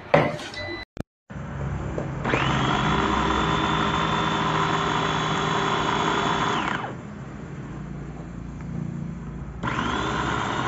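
Motor of a small electric capsule-style food chopper running with its blades chopping vegetables, with a steady high whine. It spins up about two seconds in, runs for about four and a half seconds, winds down, then starts up again near the end.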